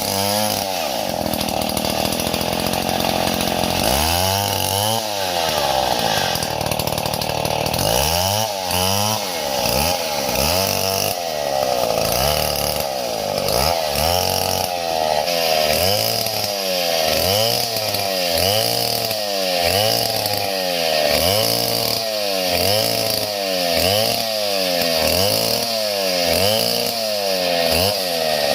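Small chainsaw engine running. Its speed is held high for the first several seconds, then dips and climbs again over and over, about once every second and a quarter.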